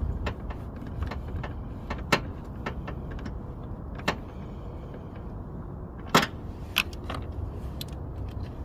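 Scattered sharp clicks and taps of a socket wrench and the plastic headlight assembly as it is seated and bolted in, the loudest about two, four and six seconds in, over a steady low rumble.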